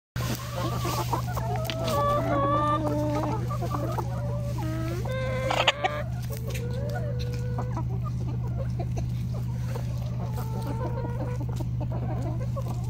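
A flock of laying hens clucking, many overlapping calls over the first six seconds with a louder burst just before six seconds in, then sparser calls. A steady low hum runs underneath.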